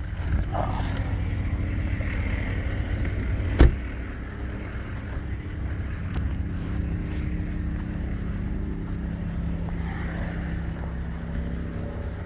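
Car engine running steadily, with a single sharp knock about three and a half seconds in.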